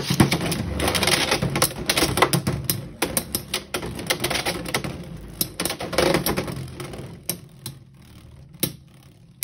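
Two Beyblade X spinning tops, Chain Incendio and Hell's Chain, clashing and rattling around a plastic stadium: rapid metal-on-metal clicks over the whir of the spin. The clicking thins out and grows quieter after about seven seconds, leaving a few isolated knocks.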